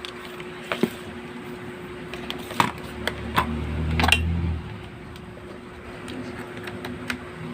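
Freshly replaced micro switches in an A4Tech OP-720 USB mouse clicking as its left and right buttons are pressed in a test, a handful of sharp clicks at irregular intervals over a steady low hum.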